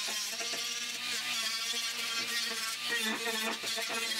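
Handheld power grinder smoothing a fresh weld seam on a steel wheel-arch repair panel, running steadily with a hissing whine whose pitch wavers as it is worked along the metal.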